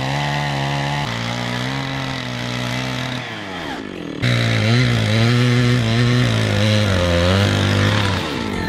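Gasoline chainsaw cutting lengthwise along a log, its engine pitch wavering as it loads up in the cut. The pitch sags a little past three seconds in, then jumps sharply about four seconds in and runs on, louder.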